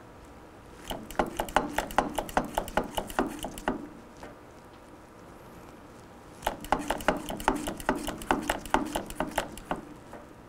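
Two bursts of rapid crackling pops, about three seconds each, from bleeding a motorcycle front brake master cylinder: air bubbles and brake fluid sputtering out of the bleed fitting through the clear hose, a sign that air is still being purged from the system.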